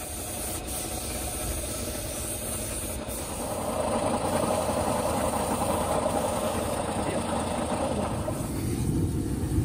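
Compressed-air spray gun hissing as it sprays into a brake drum casting mould, over the steady hum of a running engine or compressor. The hiss grows louder about three and a half seconds in.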